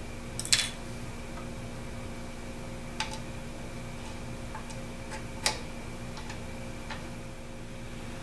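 A handful of short, sharp metallic clicks and taps from hands working tools and parts at a drill mill, the loudest cluster about half a second in and others near three and five and a half seconds, over a steady background hum.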